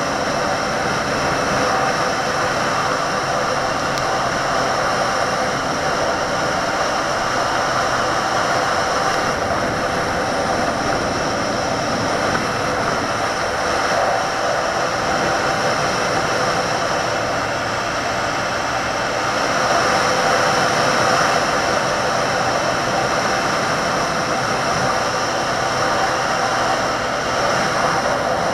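Benelli 150S motorcycle's single-cylinder engine running steadily while riding at cruising speed, mixed with wind rush, swelling slightly about twenty seconds in.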